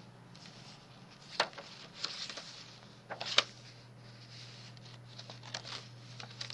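Pages of a handmade paper junk journal being turned and handled: soft paper rustling with two sharp taps, about a second and a half in and again near three and a half seconds, over a low steady hum.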